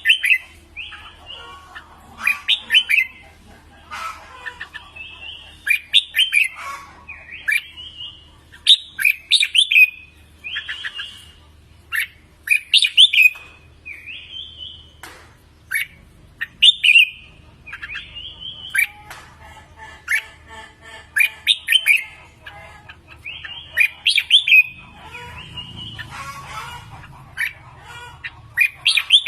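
Red-whiskered bulbul singing: short, loud whistled phrases repeated every second or two, over a faint low hum.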